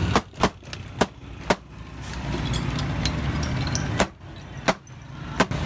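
Green glass soda bottles being popped open one after another with an opener rod: about nine sharp pops over a steady low rumble.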